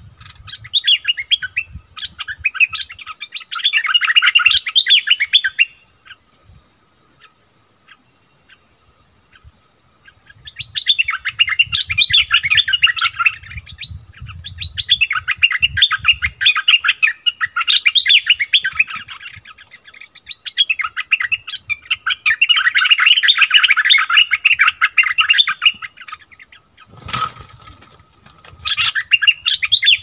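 Bulbuls in a calling duel, a caged male and a wild bird answering each other in fast, excited chattering phrases of a few seconds each, with short pauses between. One sharp knock near the end.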